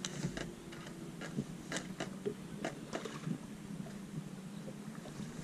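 Scattered light clicks and small water splashes at the side of a bass boat as a hooked smallmouth bass is grabbed by hand and lifted from the water, over a faint steady hum.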